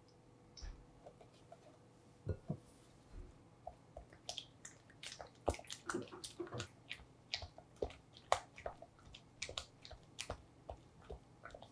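A spatula stirring heavy cream into soft cream cheese in a glass bowl: irregular wet squelches and light clicks against the glass, starting about two seconds in.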